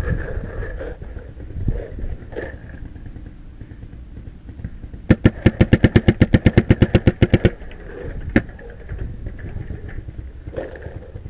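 Paintball marker firing a fast string of about twenty shots at roughly nine a second, then one more shot about a second later. Before the shots there is rustling and thumping as the player moves into cover.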